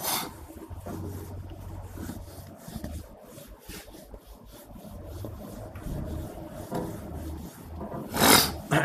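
Faint rubbing and scraping handling noises over a low steady hum, with a short, loud burst of noise near the end.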